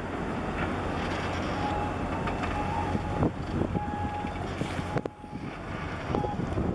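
Wind buffeting the microphone over a low, steady engine drone from the harbour tug and ship, with a few faint short high tones and a couple of sharp knocks.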